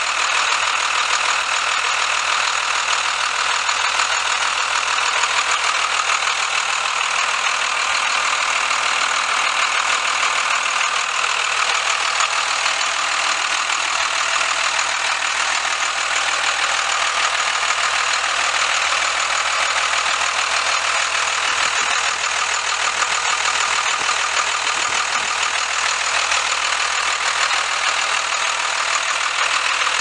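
1994 Blue Bird TC2000 school bus's diesel engine idling steadily, heard close up at the open engine compartment.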